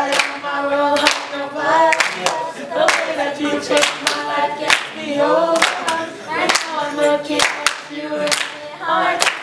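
A group of young voices singing together in unison, with hand claps in time, roughly one a second.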